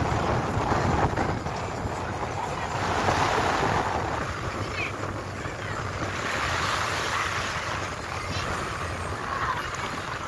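Shallow sea surf washing around a wooden platform, swelling and easing a couple of times, with wind rumbling on the microphone.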